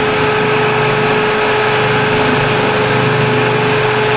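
Jet JBOS-5 oscillating spindle sander running with a rubber belt cleaning stick pressed against its spinning sanding sleeve, a steady rough rubbing hiss as the stick clears the clogged abrasive, stopping about four seconds in. Under it runs the steady hum of the sander and its shop vac dust extraction.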